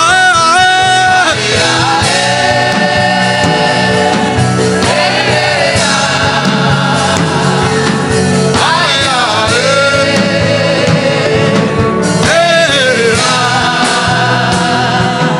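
Gospel worship music: a lead voice sings wavering, ornamented lines over sustained chords, with a choir behind.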